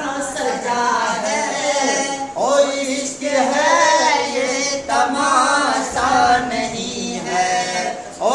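A man singing a naat unaccompanied, in drawn-out phrases of long held notes that bend in pitch, with short breaths between phrases.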